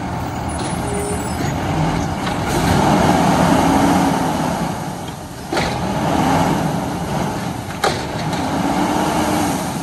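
Diesel garbage truck's engine revving up and back down three times while its automated side-loader arm lifts and dumps a trash cart, the revs driving the hydraulics. Two sharp knocks, one about halfway through and one near the end, come from the cart and arm.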